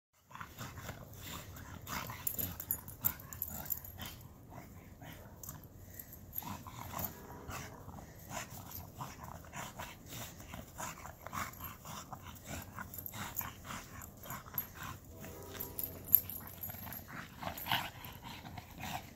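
Bulldog playing with a football in snow: her heavy breathing and the crunch of snow as she noses and rolls the ball, with two short pitched vocal sounds, about a third of the way in and again past the middle.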